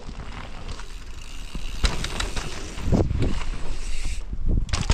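Mountain bike rolling over a dirt trail: rough tyre noise and rattling of the bike, with a sharp knock about two seconds in and a heavy rumble a second later.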